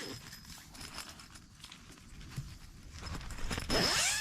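Rustling and scraping of wet nylon tent fabric being handled, a crackly run of small irregular sounds, with a short vocal sound near the end.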